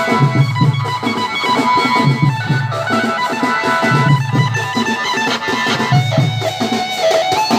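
A live band party playing dance music: a heavy drum beat with a held melody line over it.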